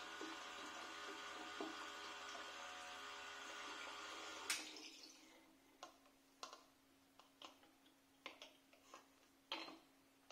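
Battery-powered electric transfer pump humming steadily as cider runs through the tube into a plastic funnel, then switched off with a click about four and a half seconds in. After that come scattered drips and small knocks as the funnel and tube are moved on to the next bottle.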